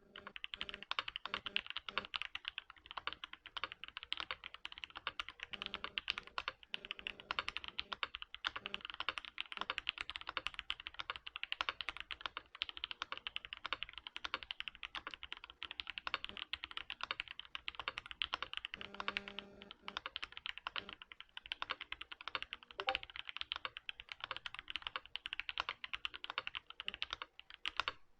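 Continuous fast typing on a Matrix Noah mechanical keyboard with hand-lubed and filmed Original Aspiration switches and GMK Oblivion keycaps, a dense stream of key clicks with no pauses.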